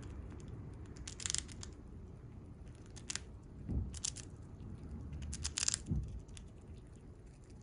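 Siberian chipmunk chewing food held in its paws: crisp crunching clicks in several quick clusters, with a couple of low thumps.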